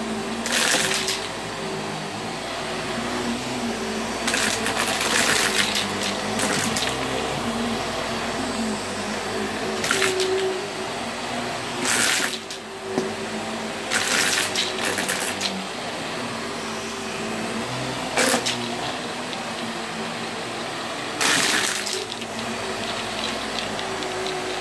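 Vax cordless stick vacuum running steadily over a shaggy rug. Its sound swells into brief louder rushes several times.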